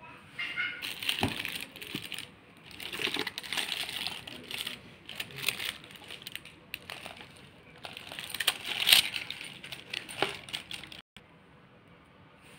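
Dry woven straw basket and tinsel being handled: irregular crackling rustles with sharp clicks, coming in bursts and cutting off suddenly about eleven seconds in.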